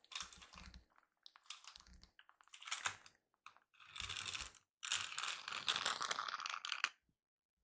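Kitten's claws scratching and scrabbling at a floor mat, in quick rustling bursts with a few light paw thumps. It grows busiest toward the end, then stops suddenly about seven seconds in.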